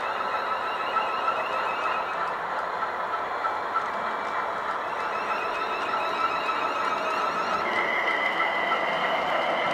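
Model train running on the layout: a steady electric motor whine with a few light clicks from the wheels. About eight seconds in the whine changes to a new note and grows a little louder.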